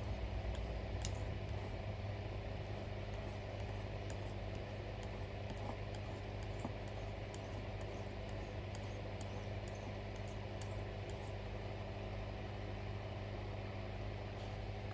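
Light strokes of an Old Hickory carbon-steel knife blade on the fine honing side of a sharpening stone, about two a second, taking off the burr; they stop about eleven seconds in. A steady low mechanical hum runs underneath and is the loudest sound.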